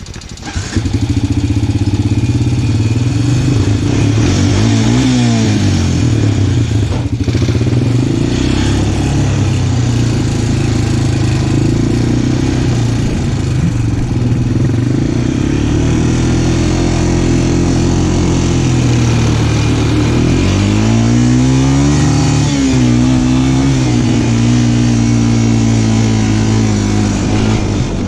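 Small off-road vehicle engine running hard, getting louder about half a second in as it pulls away, then revving down and back up a few times as it is ridden.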